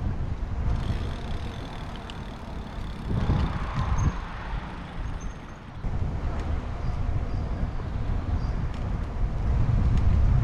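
Wind buffeting the microphone of a bicycle rider on the move, a gusty low rumble that swells briefly about three seconds in.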